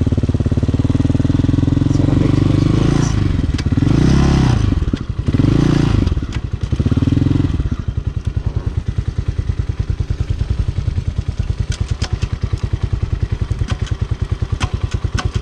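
Hawk 250 dirt bike's single-cylinder four-stroke engine running during a ride. It swells three times in quick succession between about four and seven seconds in, then settles to a slower, even pulse at low revs.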